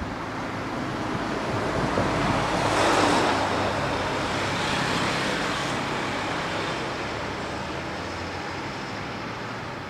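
A vehicle passing by: steady running noise swells to a peak about three seconds in and then slowly fades away.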